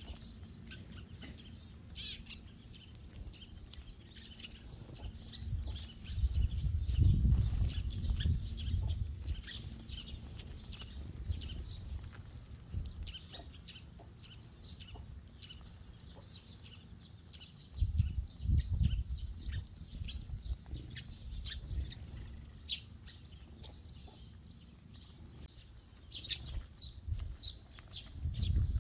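Eurasian tree sparrows chirping repeatedly: many short, high chirps throughout. Two spells of low rumble come about a quarter of the way in and again past the middle.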